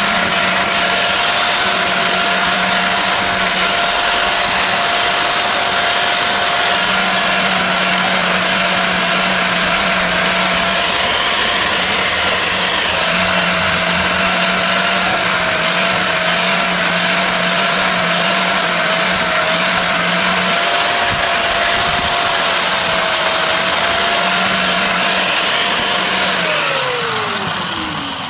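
An electric power-tool motor running at a steady pitch under a loud hiss, typical of grinding. Near the end it is switched off and its pitch falls as it winds down.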